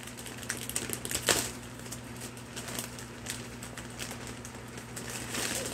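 Plastic mailer bag crinkling and crackling as it is pulled and torn open by hand, in irregular small crackles with one sharper rip about a second in.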